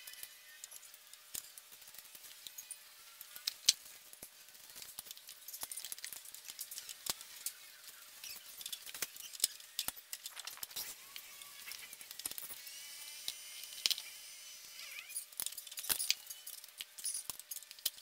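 Scattered light metal clinks and knocks of a motorcycle drive chain, sprocket and rear brake parts being handled as the rear wheel is fitted back. There is a sharper knock about three and a half seconds in.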